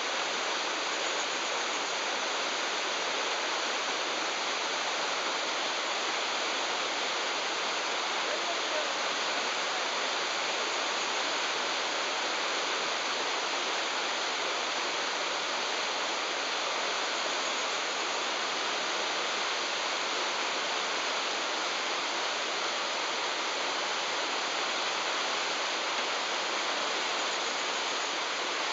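Whitewater rapids of a rocky river, rushing steadily.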